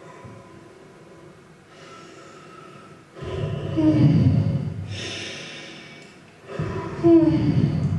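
A woman's amplified voice vocalising into a microphone: two breathy, howl-like calls a little over three seconds apart, each sliding down in pitch, the first trailing off into a hiss of breath. Faint steady tones sound underneath.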